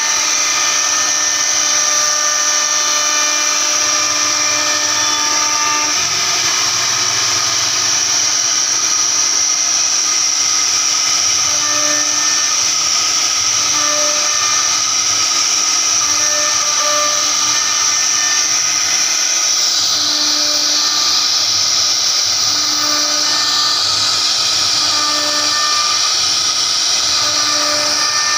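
CNC router spindle whining steadily while a small carving bit cuts a relief pattern into a wooden panel. Lower hums come and go in short spells as the head moves, and the whine shifts slightly about two-thirds of the way through.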